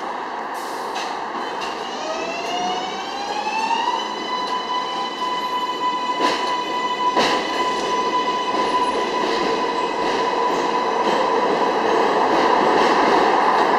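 R142A subway train accelerating away along elevated track. Its electric propulsion whine rises in pitch for about two seconds, then holds one steady tone over wheel and track noise. Two sharp clacks come about a second apart as the wheels cross rail joints.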